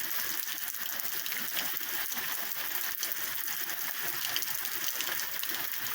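Heavy rain pouring down in a partial hurricane, a steady hiss of falling water.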